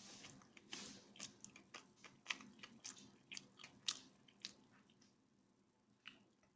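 Faint, irregular clicks and crackles, a few a second, dying away about five seconds in, with one more click near the end.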